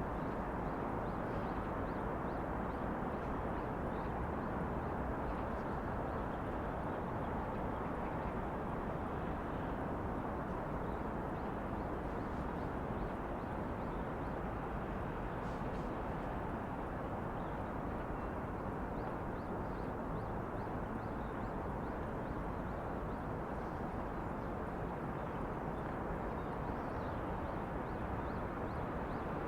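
Steady outdoor city ambience: a constant low hum of distant traffic, with faint light taps or steps now and then.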